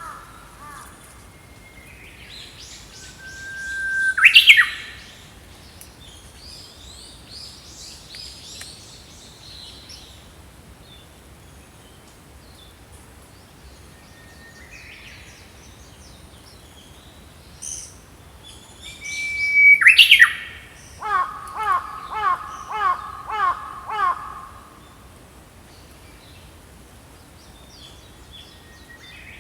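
Small songbirds singing and calling. Twice a loud song rises to a sharp upward sweep, and right after the second comes a run of about six evenly repeated calls, with softer twittering between.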